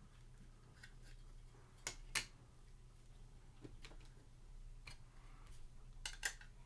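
Faint scattered clicks and taps of clear plastic card holders being handled and stacked, two close together about two seconds in and two more about six seconds in, over a low steady hum.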